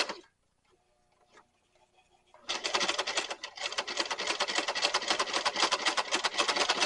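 Brother household sewing machine starting up about two and a half seconds in and then running steadily, stitching velcro onto thick leather (about 6 oz) in a fast, even clicking rhythm.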